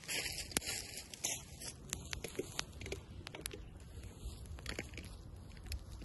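Wood fire crackling in an open fire pit, with sharp pops scattered irregularly throughout. A dense hissing rustle runs for the first second and a half, over a low rumble.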